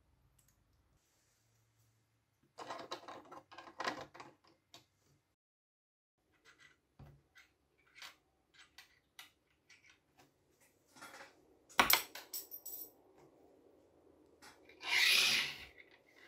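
Small metal battery contacts, flat plates and a coil spring from a toy sewing machine, clicking and clinking as they are handled and set down on a wooden tabletop. There is a sharp click about twelve seconds in and a second-long scrape near the end.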